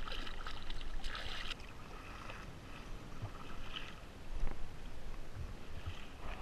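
Seawater splashing against the side of a sit-on kayak, louder for the first second and a half, followed by softer swishes of kayak paddle strokes every second or so.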